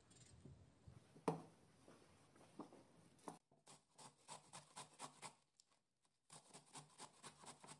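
Cabbage wedge scraped down a stainless steel grater in quick, even strokes, about five a second, in two runs with a short pause between. A single sharp knock comes a little over a second in.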